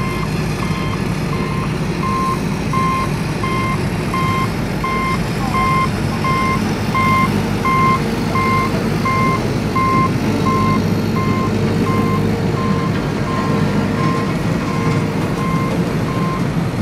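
Vehicle reversing alarm sounding evenly spaced beeps, about three a second, over a steady low rumble; the beeping stops near the end.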